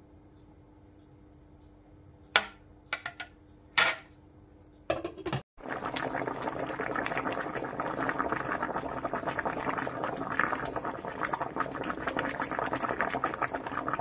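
Metal tongs click sharply against an electric cooking pot a few times as ears of corn are set in. Then water bubbles at a rolling boil around the corn, a dense crackling bubbling that runs on steadily.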